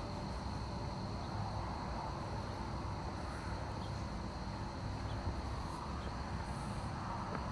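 Outdoor farm ambience: a steady low rumble of wind on the microphone under a constant high-pitched insect drone, with a few faint ticks.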